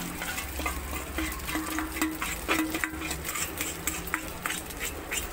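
Cooked rice being scraped from a stainless steel bowl into a hot wok of butter, oil and garlic, with a utensil scraping and clinking irregularly against the metal and a faint sizzle underneath.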